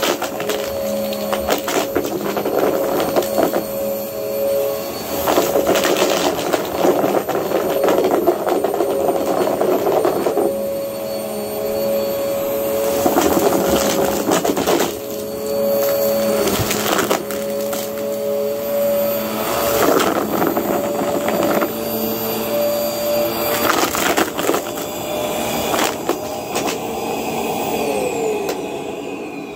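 Vacuum cleaner running with a steady motor whine, over which come frequent crackles and rattles of debris on carpet being sucked up. Near the end the motor's pitch falls as it winds down.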